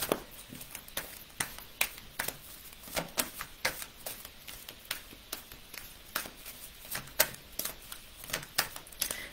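A deck of oracle cards being shuffled by hand: an irregular run of light clicks and slaps of card on card, about two a second.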